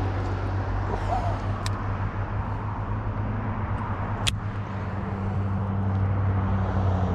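Steady low hum of a vehicle engine running, with a single sharp click about four seconds in.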